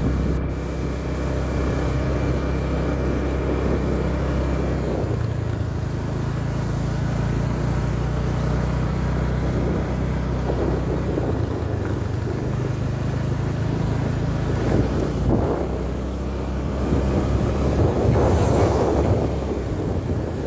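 A vehicle's engine running steadily while driving, with road and wind noise over it. The engine note shifts about five seconds in, and the wind noise swells near the end.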